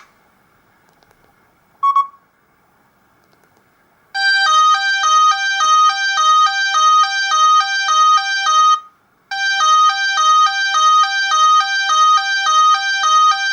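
An Alcatel 2000X ringtone played through a Samsung GT-B2710 phone's loudspeaker. There is a short beep about two seconds in. About four seconds in, a quick repeating melody of bright, buzzy electronic tones starts; it breaks off briefly around the middle and starts over.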